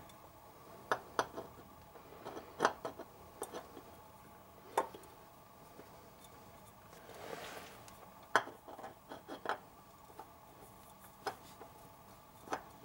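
Scattered light metallic clicks and taps as a spin-on oil filter is offered up to its mount and seated square on the thread, with a soft rushing swell about seven seconds in.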